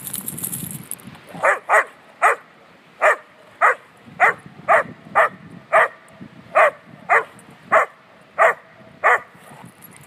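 A dog barking in play, about fourteen sharp barks at roughly two a second, after a second of rustling.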